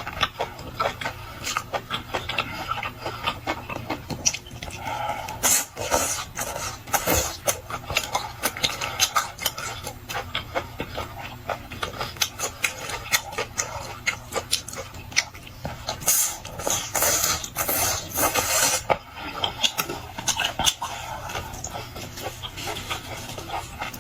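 Close-miked chewing of crunchy beef tripe: a fast, irregular run of wet crunches and mouth clicks, with louder smacking around six seconds in and again from about sixteen to nineteen seconds.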